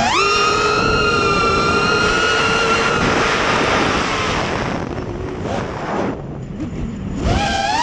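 FPV racing quadcopter's brushless motors and propellers: a high whine jumps up in pitch at the start and holds steady, then drops away about four to five seconds in as the throttle is cut for the dive, leaving rushing air noise. The whine climbs back near the end as throttle is punched again.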